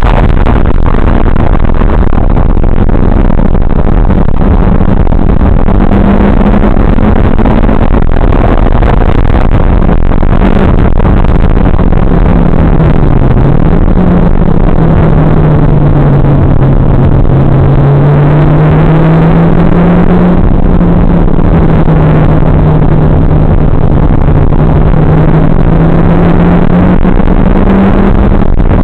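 Mitsubishi Lancer Evolution X GSR's turbocharged 2.0-litre four-cylinder engine under load on a race track, its pitch drifting up and down with a brief dip a little before halfway. It is buried in loud, distorted wind and road noise from an onboard recording.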